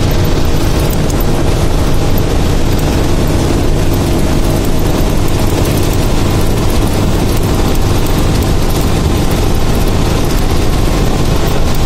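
Bus engine and road noise heard from inside the cabin while driving at highway speed: a loud, steady drone with a strong low hum.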